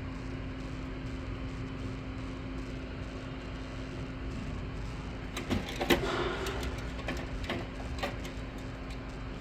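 Steady electrical hum. From about five to eight seconds in come a few light clicks and scrapes of small tools and parts being handled on the bench.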